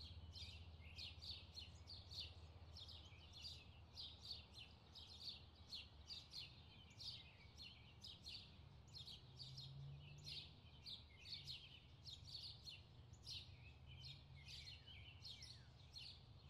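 Faint birds chirping: a steady run of short, quick, high chirps, a few each second, over a low hum.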